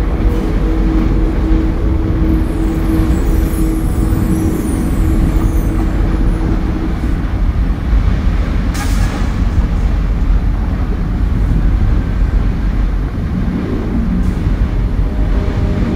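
A loud, deep, continuous rumble, with a held low drone at the start and a short hissing whoosh about nine seconds in.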